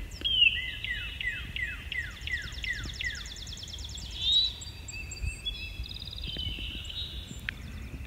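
Northern cardinal singing a run of about eight down-slurred whistles, roughly three a second, that stops about three seconds in. Another bird's fast, high trill overlaps, and fainter whistles from other birds follow.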